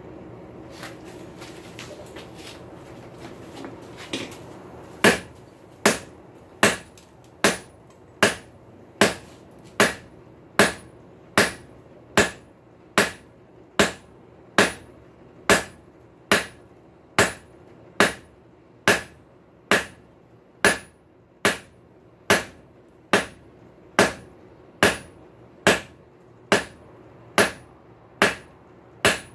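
Blacksmith's hand hammer striking hot high-carbon steel on an anvil, drawing out a square punch taper. The blows start about five seconds in and come at an even pace of a little over one a second, each with a short ring. Before them there are only a few faint clicks over a steady hum.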